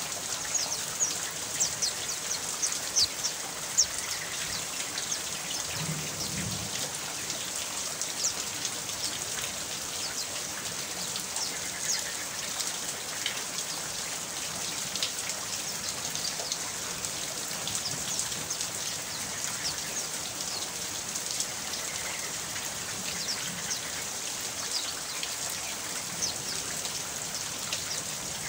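Steady rain falling, a constant hiss with a dense patter of sharp drop ticks, heavier in the first few seconds.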